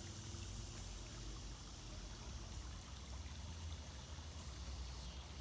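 Creek water running steadily, an even wash of flowing water, with a low uneven rumble underneath.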